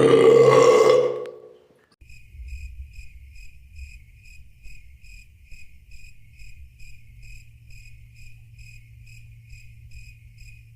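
Crickets chirping, the 'awkward silence' comedy sound effect: evenly spaced high chirps, about two a second, over a low hum. It follows a loud, short sound that dies away within the first two seconds.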